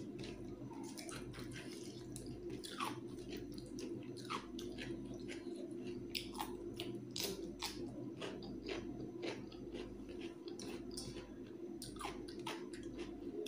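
Close chewing and wet mouth sounds of a person eating rice and chicken curry by hand, with scattered sharp clicks and crunchy bites of raw cucumber. A steady low hum runs beneath.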